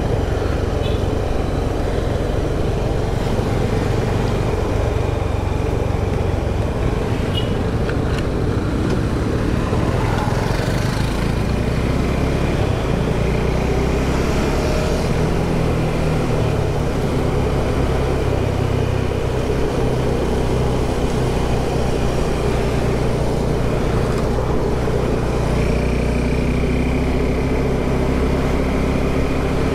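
Motorcycle engine running at riding speed under steady wind rush; the engine note shifts about halfway through.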